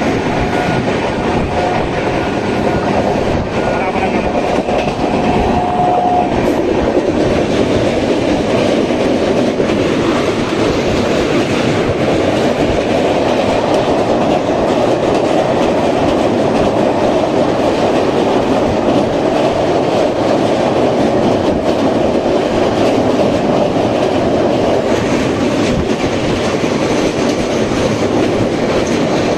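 Train running across a riveted steel truss railway bridge, heard from on board: a loud, steady rumble and clatter of the wheels on the rails.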